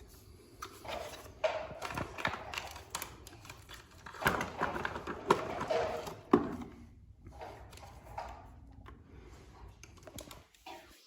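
Irregular clicks and knocks of hard objects being handled, busiest in the middle, with a sharp louder knock about two-thirds of the way through.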